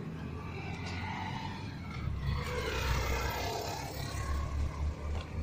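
Street traffic: a motor vehicle passes, its sound swelling to a peak about three seconds in and then fading, over a steady low rumble.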